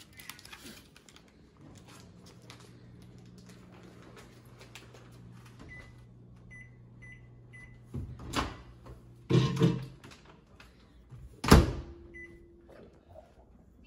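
Over-the-range microwave keypad beeping as buttons are pressed: a run of short high beeps, then another near the end. A low steady hum runs under the first part, and three loud clunks come in the latter half.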